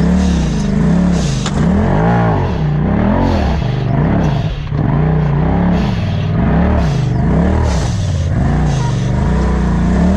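Off-road side-by-side engine revving up and down over and over, about once a second, as the throttle is worked on the trail.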